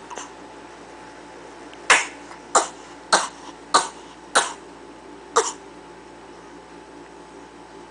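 A person putting on a fake cough: a run of six short, sharp coughs, the last after a slightly longer pause.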